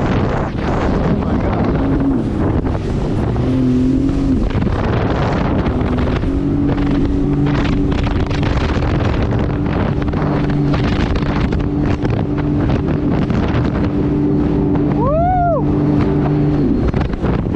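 A watercraft engine running under way, its pitch wavering for the first few seconds and then holding steady, with heavy wind noise on the microphone. A short rising-then-falling tone sounds about fifteen seconds in.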